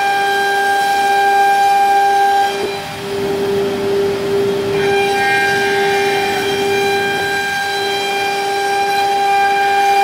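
CNC router's HSD spindle whining at a steady high pitch as it cuts a wood panel, over the hiss of the cut. The whine's upper overtones drop away briefly about two and a half seconds in and come back about five seconds in.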